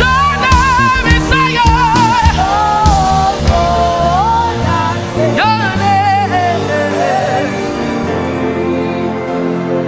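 Live gospel worship music: a group of women singers sing a melody with vibrato over a band. The beat drops out about halfway, leaving held chords under the voices.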